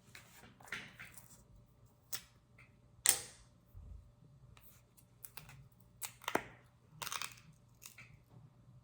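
A small cosmetic balm container being handled and opened by hand: a scatter of short plastic clicks, taps and rustles, with the sharpest click about three seconds in.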